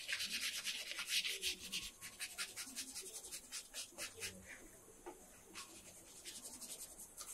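Bristles of a fan brush scratching across paper in quick, repeated strokes, dense and fast for the first two seconds, then sparser, then quicker and lighter again near the end.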